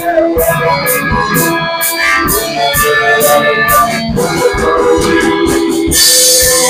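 Live band music: a steady drum beat under held chords, with a cymbal crash near the end.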